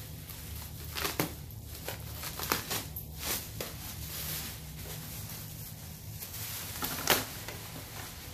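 Bubble wrap and plastic packing crinkling and rustling as it is pulled apart and cut open by hand, with scattered sharp crackles, the loudest one near the end.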